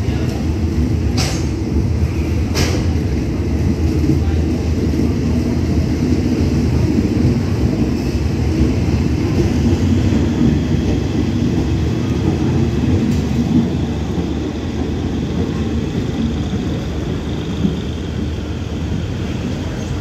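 Passenger coaches of a departing train rolling past along the platform: a steady low rumble of wheels on rail, with two sharp clicks a little over a second in and a little later, easing slightly in the second half as the train draws away.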